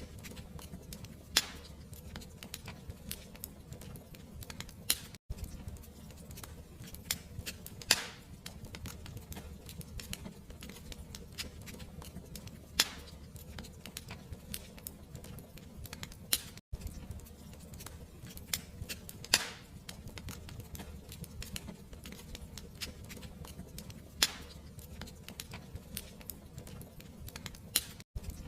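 Fireplace fire crackling: a steady low rumble of flames with frequent small pops and a sharp, louder snap every few seconds. The sound cuts out for an instant three times.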